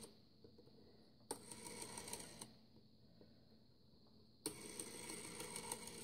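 Rotary dial of a 1964 desk telephone turned and let go twice, each time running back to rest with a clicking whirr lasting about a second.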